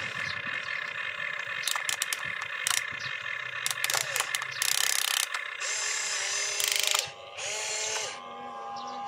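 Toy RC excavator's electric motors and plastic gearboxes whining as the boom, bucket and turret move, the pitch gliding up and down as each motion starts and stops. Clusters of sharp clicking and two short bursts of harsh grinding about five and seven seconds in.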